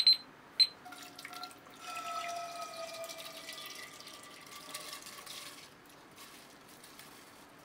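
Soaked rice and its water being poured from a bowl into a Nambu cast-iron casserole pot, pushed along by a wooden spatula: a wet pouring and splashing, loudest from about two to five seconds in. A digital kitchen timer beeps briefly at the very start.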